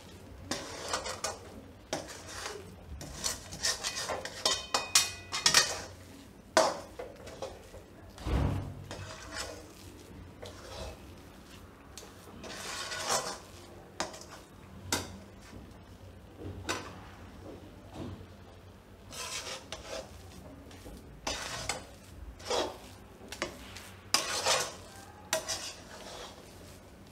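A spatula scraping and clinking against a steel kadai while stirring a thick coconut, mawa and sugar-syrup mixture for kopra pak, in irregular strokes, with a dull thump about eight seconds in.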